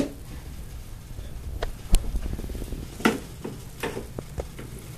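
Scattered clicks and knocks of power cable connectors being handled and plugged into the sockets on the back of die-cast LED display cabinets, the sharpest knock about two seconds in.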